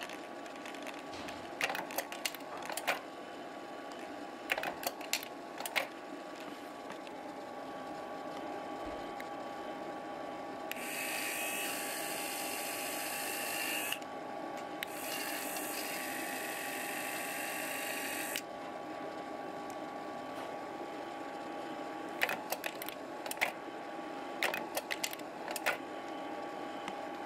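Kodak Carousel S slide projector running with a steady fan hum. Its slide-change mechanism clicks and clacks in short bursts as the remote's buttons are pressed, and in the middle its motorized lens focus whirrs twice, about three seconds each.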